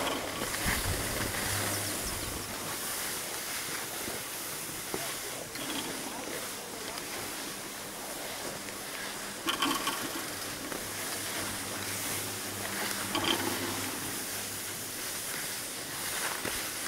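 Steady hiss of skis gliding over packed snow while being towed up a T-bar ski lift, with a few short clatters along the way.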